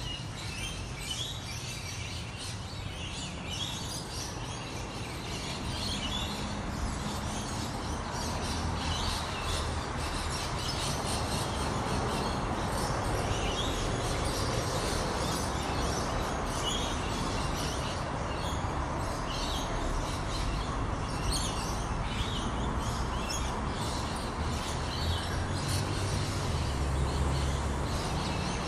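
Birds chirping in many short, high calls, scattered through, over a steady background noise that grows a little louder about six seconds in.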